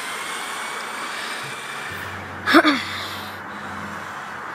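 Steady outdoor noise with the faint whine of the RC buggy's electric motor fading as the car drives off. About two and a half seconds in comes one short, loud breathy vocal sound, like a gasp or snort, close to the microphone.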